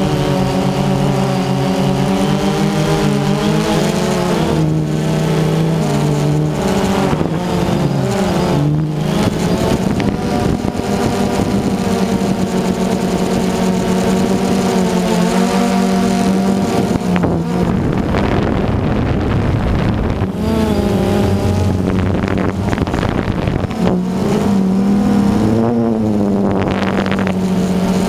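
DJI Phantom 2 quadcopter's motors and propellers running with a steady whine, the pitch wavering up and down as the throttle changes, with a stretch of rushing wind noise in the middle.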